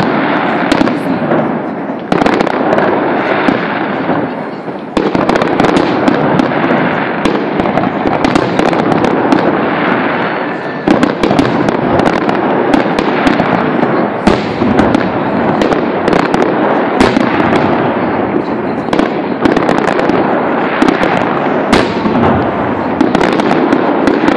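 Aerial fireworks display: shells launching and bursting overhead in a dense, unbroken run of sharp bangs.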